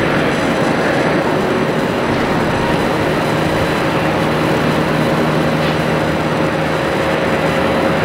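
Jet airliner engines running with a steady, loud roar and a few steady whining tones, holding level without rising or fading.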